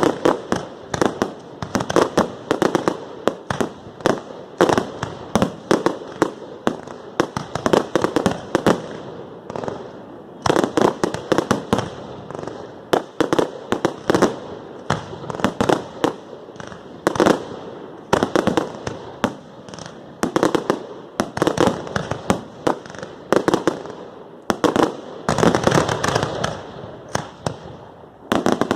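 Fireworks display: rapid volleys of bangs and crackling bursts, going in dense clusters with short lulls between them.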